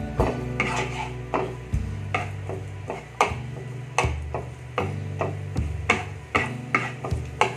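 Wooden spatula stirring chopped onions in a nonstick frying pan: repeated uneven taps and scrapes against the pan, over low background music.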